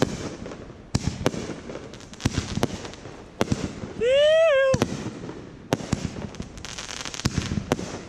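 Three-inch commercial-grade mortar shells from a finale rack launching and bursting, a string of sharp bangs about every half second to second. About four seconds in, a person lets out a loud whoop.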